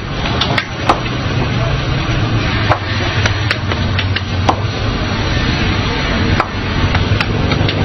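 Dough slapped and patted by hand at a street food stall: a series of irregular, sharp slaps and taps over a steady low hum of street noise.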